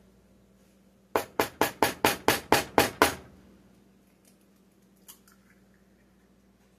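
A run of about nine quick, sharp knocks, roughly four a second, of a hard object striking something in the kitchen, followed by a single faint click about five seconds in.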